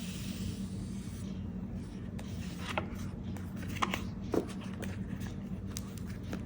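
Paper and stationery being handled for journaling: a rubbing swish about the first second, then scattered light taps and clicks, over a steady low hum.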